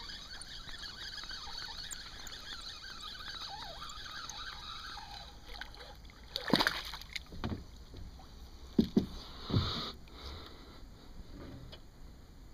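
A small hooked bass splashing at the water's surface as it is reeled up to the kayak. There are several sharp splashes in the second half, the first one the loudest, after a few seconds of quiet water sound.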